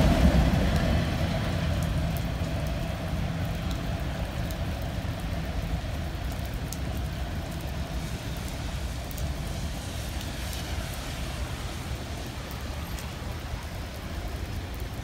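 Freight train's rolling rumble fading steadily as the last autorack cars pass and the train pulls away, over the steady patter of rain.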